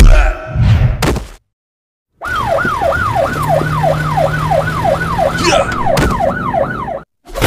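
Fight hit sounds in the first second, then after a short gap a police siren in a fast yelp, each sweep falling in pitch, about three a second, over a steady low hum. It cuts off just before the end.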